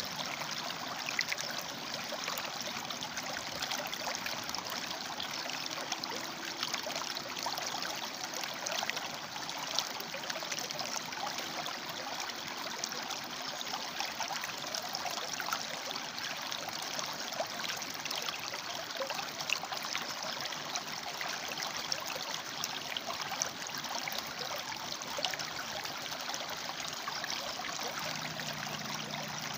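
River water flowing and splashing steadily over and between rocks, a continuous bubbling rush full of small splashes.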